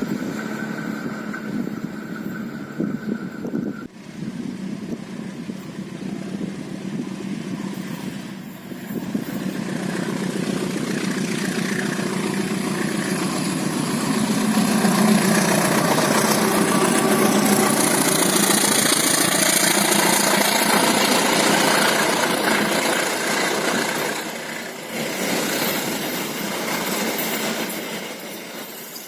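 Diesel-electric locomotive and its passenger train passing, the engine and wheel noise building to its loudest about halfway through and easing off near the end.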